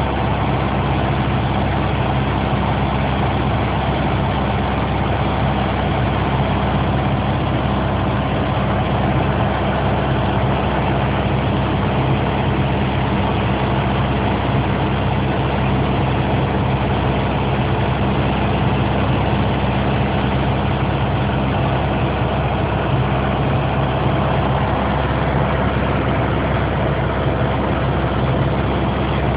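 Piper PA-28 light aircraft's piston engine and propeller droning steadily, holding one pitch and level throughout.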